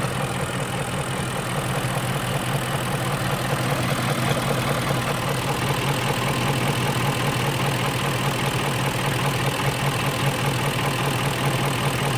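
BMW X5 engine idling steadily, on a car with an exhaust leak that the owner is trying to locate.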